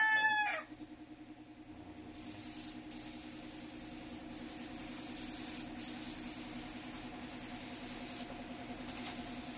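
Paint spray gun hissing steadily as a first coat of paint goes on, the spray stopping for a moment several times and cutting off near the end. A steady low hum runs beneath it.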